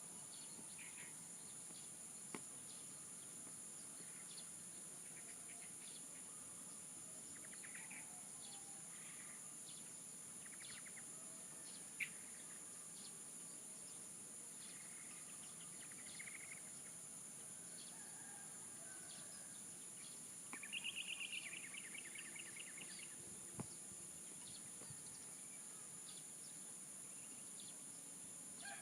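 Faint outdoor ambience: a steady high-pitched insect drone with scattered bird chirps. About 20 seconds in, a louder rapid chattering bird call lasts about a second and a half.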